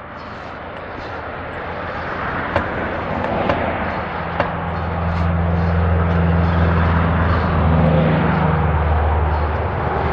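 Homemade bandsaw sawmill's 14 hp 420cc engine running and revving up to drive the band blade. It gets louder over the first six seconds or so and then runs steady, with a few sharp clicks about two and a half, three and a half and four and a half seconds in.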